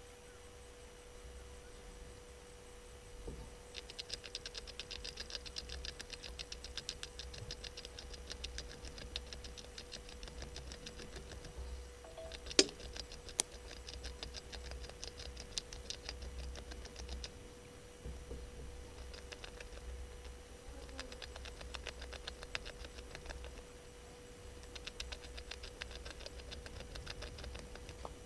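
Rapid high-pitched ticking in long trains lasting several seconds each, three runs in all, over a faint steady hum. Two sharp clicks about midway are the loudest sounds.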